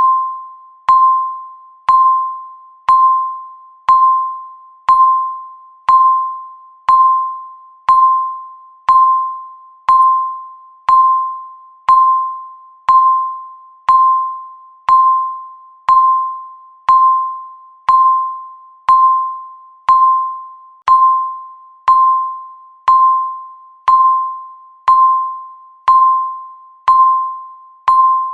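Electronic countdown-timer beep, one clear ringing tone every second, each starting sharply and fading away before the next.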